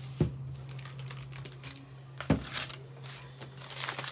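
Crinkly rustling of hands handling things on a kitchen counter, with two sharp knocks, the louder a little over two seconds in, over a steady low hum.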